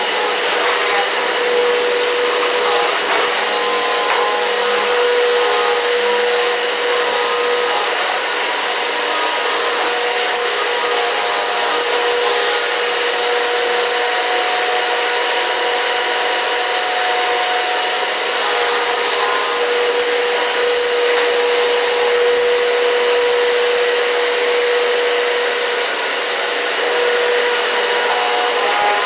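Eureka PowerSpeed vacuum cleaner running continuously, a steady motor hum with a high whine, its tone shifting slightly now and then.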